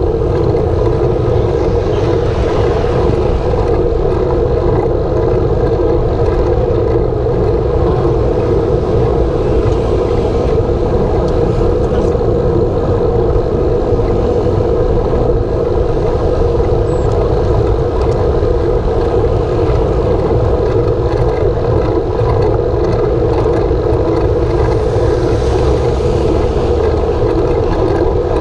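Steady rumble of a road bike rolling along asphalt, picked up through a handlebar-mounted camera: tyre and road vibration.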